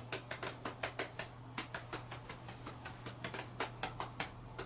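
Light, sharp clicks and taps, irregular at several a second, over a low steady hum.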